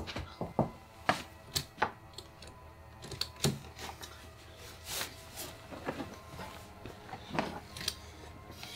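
Sharp clicks and knocks from a window that is locked shut as it is tugged and pushed at its handle and frame, coming in irregular rattles about every half second to a second.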